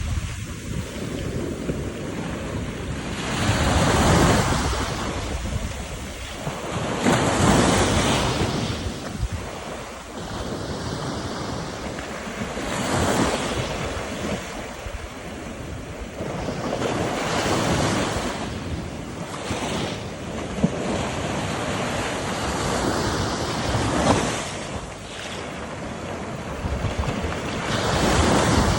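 Sea waves crashing against a sea wall: a continuous rush of surf that swells into a loud surge every few seconds, with wind buffeting the microphone.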